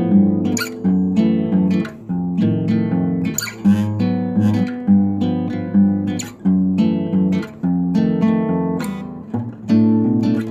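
Background music on acoustic guitar: strummed and plucked chords changing every second or so.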